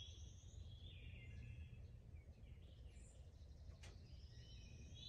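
Near silence: a steady low rumble with a few faint bird chirps, short rising whistles heard around the start and again near the end.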